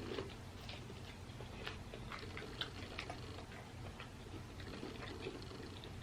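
Faint, irregular small clicks and crackles of crawfish being cracked and peeled by hand, over a low steady hum.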